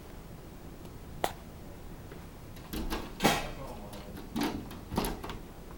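A dog jumping up against a sliding glass patio door, its paws banging and rattling the glass panel several times from about three seconds in. A single sharp click comes about a second in.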